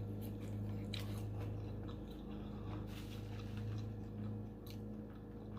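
A person quietly chewing fried food in short, soft clicks and squishes, over a steady low electrical hum.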